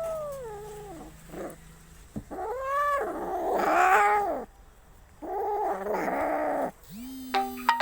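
Angry domestic cat yowling and growling in three drawn-out calls. The first is a short rising-and-falling meow; the next two are longer and harsher, and the middle one is the loudest.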